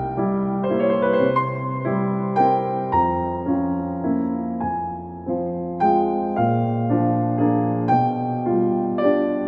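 Background piano music: a gentle melody with a note struck about every half second over sustained bass notes.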